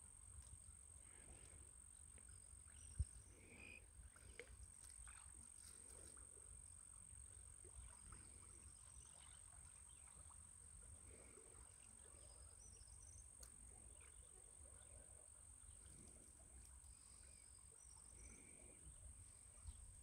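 Near silence: quiet outdoor background with a steady faint high-pitched tone and a few faint, scattered bird chirps.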